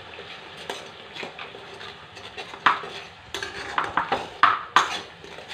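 Steel spoon scraping and knocking against a metal kadai as turmeric powder is stirred into onion paste frying in oil, over a low sizzle. The scrapes start about halfway through and come several a second.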